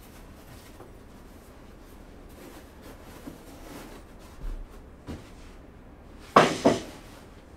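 Dresser parts being handled during assembly: light rustling and a few soft knocks, then two sharp knocks close together about six seconds in, the loudest sounds, each trailing a short ring.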